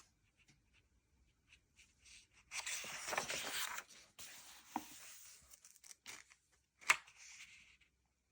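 Pages of a paper colouring magazine being turned: a papery rustle lasting about a second and a half, then a sharp tap and a shorter rustle near the end.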